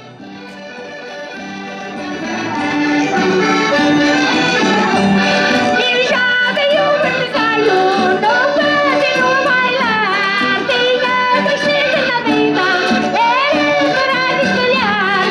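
Portuguese folk music by a rancho folclórico: accordion playing with voices singing a folk tune. It fades in over the first three seconds and then runs at full level.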